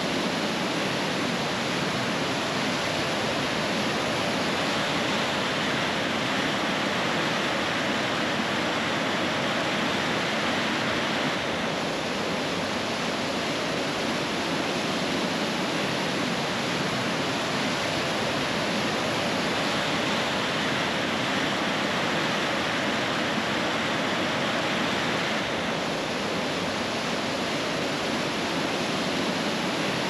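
Steady rush of the Maligne River's fast-flowing water pouring through a narrow canyon in cascades and falls. The tone shifts slightly twice, about 11 and 25 seconds in.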